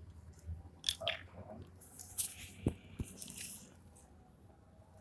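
Handling noises as a pressure washer and its parts are turned over: scattered clicks and light knocks of hard plastic, with a brief rustle about two seconds in.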